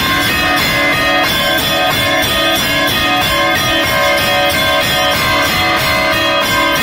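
Orthodox church bells rung in an Easter peal: several bells of different pitches struck in quick, continuous succession, their tones ringing on and overlapping.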